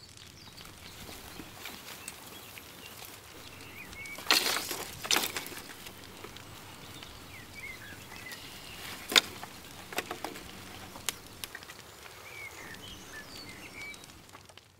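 Dry sticks and branches rustling and snapping as they are gathered from the grass and tossed onto a campfire, with a loud rustling burst a little past four seconds and a sharp snap around nine seconds. Birds chirp now and then over steady outdoor background.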